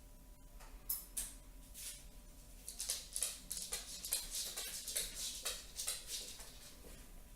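Handling noises: irregular rustling and light clicks, busiest in the middle, over a faint steady hum.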